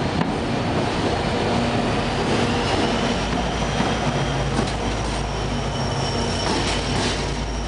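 UTDC bi-level passenger coaches rolling past with a few wheel clicks and a thin high wheel squeal. About three seconds in, the GMD F59PH diesel locomotive pushing at the rear comes alongside, adding a deep steady engine drone.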